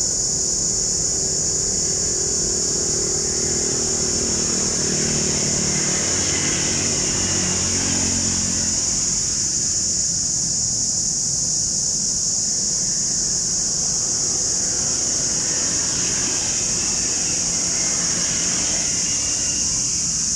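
Boeing 787-9 jet engines at takeoff thrust during the takeoff roll and lift-off, a distant jet rumble whose tones shift as the aircraft accelerates down the runway. A steady high-pitched insect chorus runs underneath throughout.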